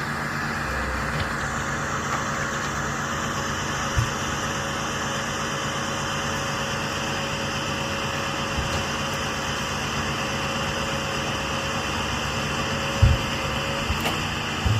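Crane truck's engine running steadily while its crane lifts a log, with a thin steady whine from about a second in until near the end. A few low knocks come through, the loudest near the end.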